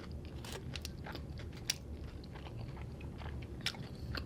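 A person chewing a mouthful of taco, with a run of short crisp crunches and mouth clicks, two of them sharper, about two seconds in and near the end.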